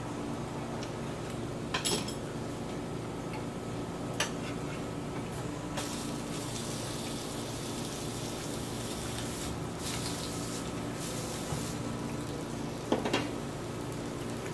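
Metal utensils clicking and scraping against a tabletop grill pan, a few sharp clinks with the loudest pair near the end, over a soft sizzle of vegetables grilling in the middle of the stretch and a steady low hum.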